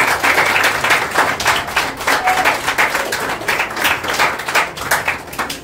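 A group of people applauding, many hands clapping quickly; the clapping dies away near the end.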